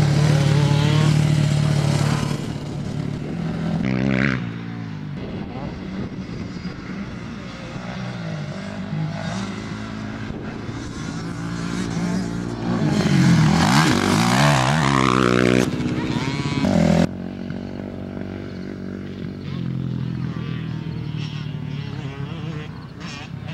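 Dirt bike engines running and revving as the bikes ride past, their pitch rising and falling. The sound is loudest at the start and again in the middle, then cuts off suddenly about two-thirds of the way through, leaving fainter engine sound.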